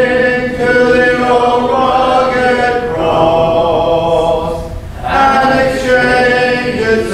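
Congregation singing a hymn a cappella, the voices holding slow, drawn-out notes.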